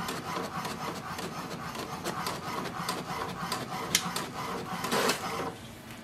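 HP DeskJet 4252e inkjet printer printing a test page: the mechanism runs in a dense stream of quick clicks as the page feeds out. It stops about five and a half seconds in.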